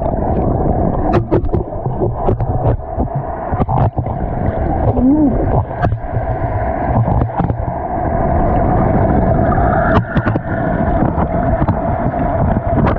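Water heard underwater through a submerged action camera: a muffled, low churning rumble with bubbling, broken by frequent sharp clicks and knocks.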